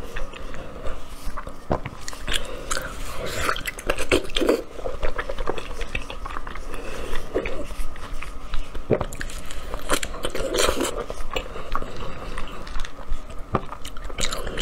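Close-miked eating: wet, irregular chewing and mouth clicks from eating saucy braised pork belly, with squelching as gloved hands tear the soft meat apart.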